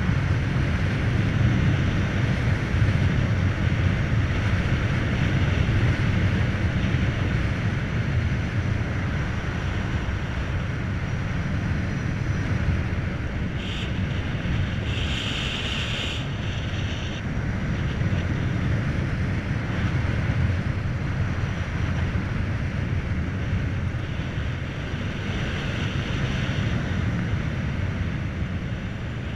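Wind rushing over the microphone and tyre road noise from a Volta BCN Sport electric motorcycle riding at speed, with no engine note. A brief higher hiss comes about halfway through.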